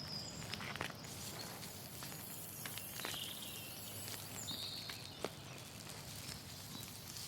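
Faint outdoor countryside ambience: a low steady hiss with scattered soft rustles and ticks, and three brief high chirps.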